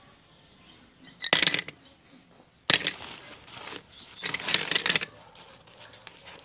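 Rusty flat steel plates clinking and scraping against each other as a hand sorts through them in a cloth sack, in several short bursts with quiet gaps between.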